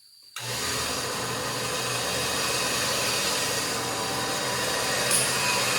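Electric winch of an overhead harness hoist running steadily, starting suddenly about half a second in: a loud, even whir over a low hum.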